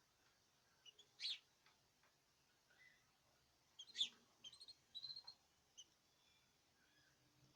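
Caged birds giving a few short, high chirps: one about a second in, a louder one about four seconds in, then a quick run of short notes.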